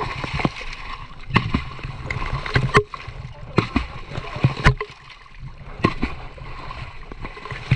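Sharp knocks and splashes, often in pairs and about one a second, from beating the water among mangrove roots to flush fish toward a set net.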